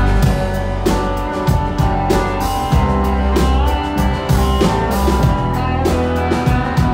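Rock band playing live: electric bass, guitars and drums, with the drums keeping a steady beat.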